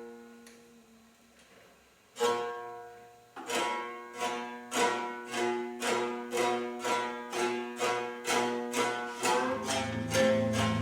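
Serraggia, a one-string cane-tube instrument with its string raised over a pig's bladder, played in ringing notes that die away. One note sounds about 2 s in, then a run of notes at about two a second, and a louder low buzzing layer joins near the end.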